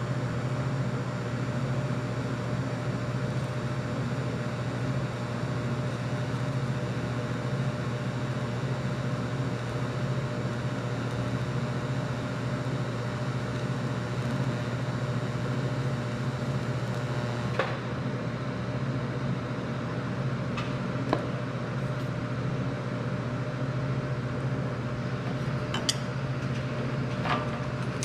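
Miller Syncrowave 180 TIG welder running with the arc going at about 90 amps: a steady electrical hum with a hiss over it. The highest part of the hiss drops off about two-thirds of the way through, and a few light clicks follow.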